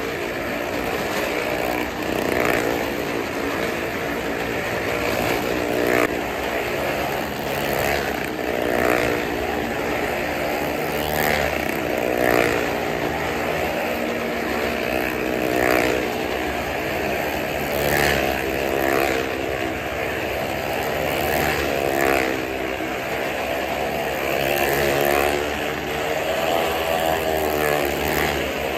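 Motorcycle engine running hard as it circles the inside of a wooden well-of-death drum. The note rises and falls, swelling every few seconds as the bike sweeps past on each lap.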